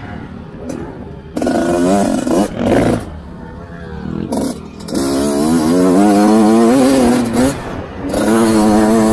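Dirt bike engine revving hard on a motocross track, the throttle opening about a second and a half in, again for a long pull from about five to seven and a half seconds, and once more near the end, easing off in between. Wind rushes over the microphone throughout.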